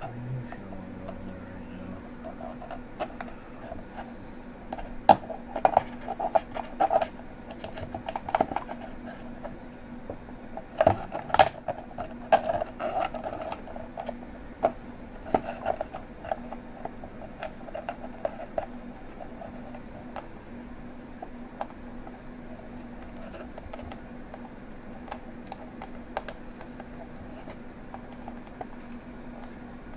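Hands handling wires and small parts on a clear acrylic case: irregular clicks, taps and scrapes, busiest in the first half and sparser later, over a steady low hum.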